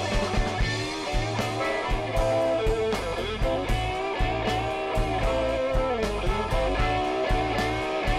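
Live blues-rock band playing an instrumental passage: electric guitars, bass and drum kit with a steady beat, with an amplified harmonica played into a handheld microphone. Held notes bend up and down in pitch over the rhythm.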